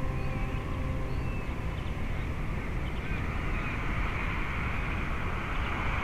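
Eachine EX2 Mini quadcopter in flight, heard from the camera slung beneath it: wind buffeting the microphone over the noise of its motors and Gemfan tri-blade props, which grows brighter from about halfway through. A strain of music fades out in the first second.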